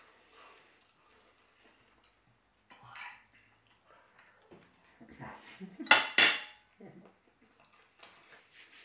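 Metal fork and knife scraping and clinking on a ceramic plate as rice is scooped up and eaten, with the loudest pair of clatters about six seconds in.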